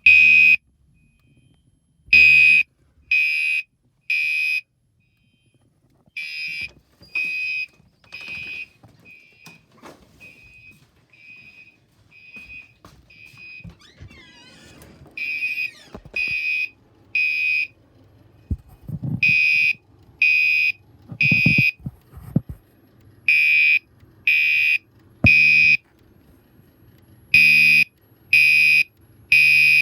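Fire alarm horns sounding the temporal-three evacuation signal: three short high beeps about a second apart, then a pause, repeating every four seconds or so. The beeps turn fainter for several seconds in the middle, and two dull thumps come a little after.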